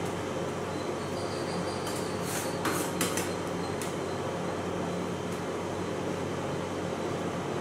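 Steady mechanical hum, with a few short scrapes of a metal spatula against a metal cold plate about two and a half to three seconds in, as ice cream base is spread and chopped on it.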